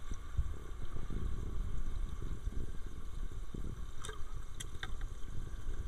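Low, uneven rumble of moving water, with a few faint clicks about four to five seconds in.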